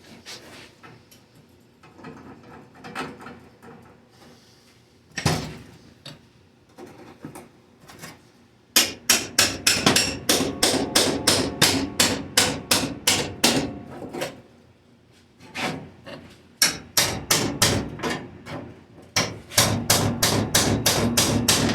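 Hammer blows in quick runs of about four strikes a second, in three bursts from about nine seconds in, after light scattered tapping and one loud knock about five seconds in.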